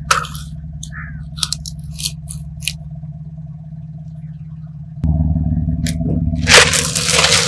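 Car engine idling with a steady hum, while glass marbles click in a plastic jar as it is set down in front of the tyre. Near the end, a loud crunching and crackling as the car tyre crushes what lies under it.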